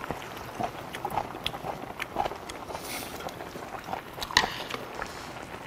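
A man chewing a mouthful of chicken, with scattered small wet clicks. About four and a half seconds in comes a sharper clink of metal chopsticks against a dish.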